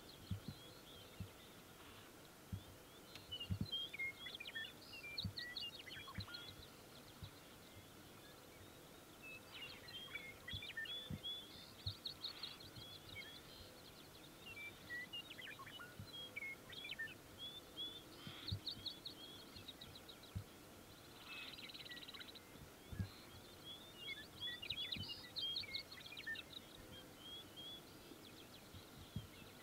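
Small songbirds singing faintly and repeatedly in open grassland: high, fast trills and short chirping phrases every few seconds. Occasional low thumps on the microphone.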